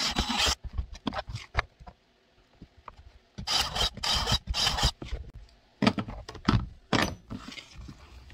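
Craftsman cordless drill boring quarter-inch holes through a kydex holster shell: short grinding bursts as the bit cuts the plastic, one at the start and a few more around four seconds in. Scattered knocks and clatter follow as the drilled shell is handled on the mat.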